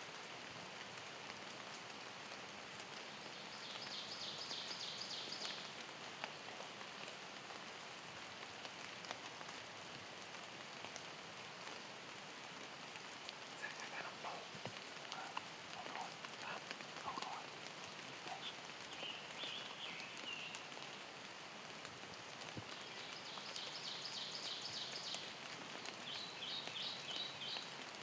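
Steady rain falling on the woods and field. A small bird trills in quick repeated high notes about four seconds in and again near the end, and a short run of lower calls comes midway.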